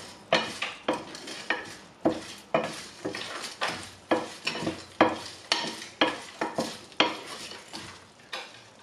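Wooden spoon stirring and scraping whole spices (coriander seeds, fennel, peppercorns, cinnamon stick, star anise) around a coated frying pan in a little oil, about three quick strokes a second, the seeds rattling across the pan. The stirring eases off near the end.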